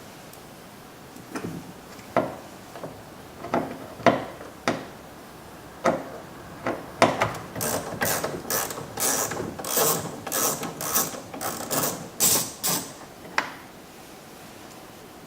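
Ratchet and socket turning out the 7mm door-panel bolts: a few scattered ratchet clicks, then about halfway through a quick run of ratcheting strokes, about three a second, that stops a couple of seconds before the end.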